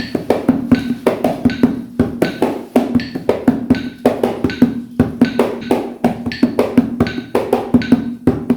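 Bare hands drumming on a pot, playing a quick, steady atabaque rhythm with accented strikes.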